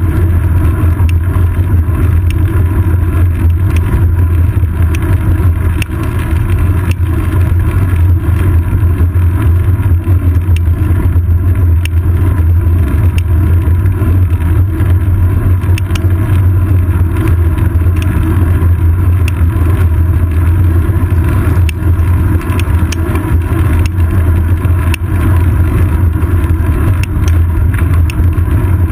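Loud, steady, deep rumble of wind buffeting and road vibration picked up by a seat-post-mounted GoPro Hero 2 in its housing as the bicycle rolls over asphalt, with small ticks and knocks scattered throughout.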